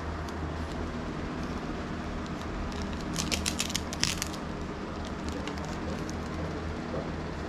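Plastic packaging crinkling as it is handled, a short burst of crackles about three seconds in, over a steady low hum.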